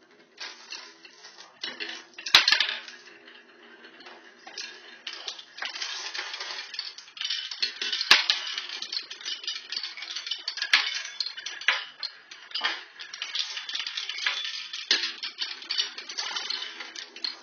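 Marbles rolling and clattering down a Haba wooden marble run: a steady rattle broken by many sharp clicks and knocks, the loudest about two and a half seconds in and about eight seconds in.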